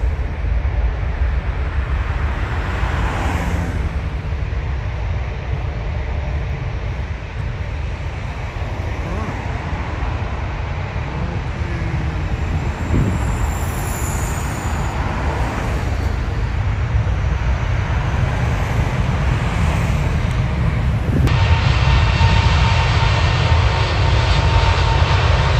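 Steady low rumble of jet airliners with cars passing on the road, one swelling past about 3 s in and another about 13 s in. Near the end, after a cut, a British Airways Airbus A380's four jet engines run with a steady high whine over the rumble.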